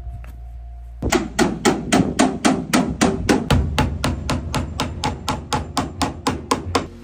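Hammer nailing a galvanized metal joist hanger to a wooden beam: rapid, even strikes, about four a second, starting about a second in.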